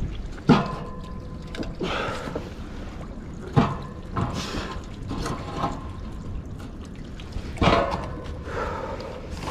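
Water splashing and dripping off a heavy, weed-covered metal find as it is hauled out of the river on a magnet-fishing rope. Three sharp knocks as it bangs against a steel edge: about half a second in, about three and a half seconds in and near the end. The first rings briefly.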